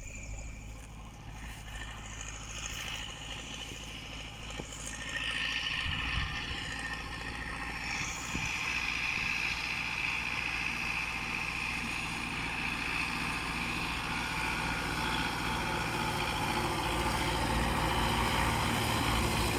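An engine running steadily, getting louder from about five seconds in, with a hissing whine above the low hum.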